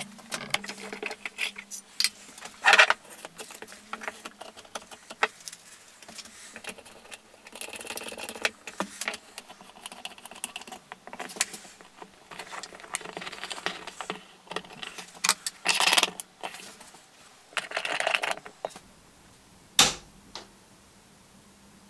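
Handling and assembly noises of small lamp parts: irregular clicks, rattles and short scrapes of metal and plastic pieces, with a few louder scraping bursts. A single sharp click comes near the end.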